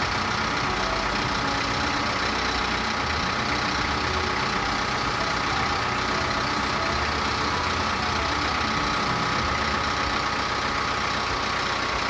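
An engine running steadily at a constant speed, with a steady high whine over the engine noise.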